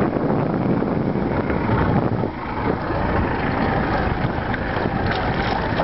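Wind rumbling on the microphone out on open water: a loud, steady rush that dips briefly about two seconds in.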